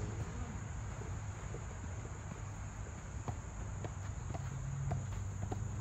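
Insects chirring steadily in a high, unbroken tone, over a low hum, with a few faint sharp knocks in the second half.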